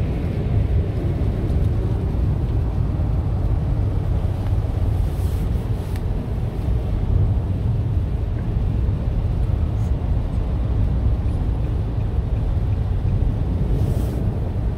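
Steady low rumble of a car driving, road and engine noise heard from inside the cabin.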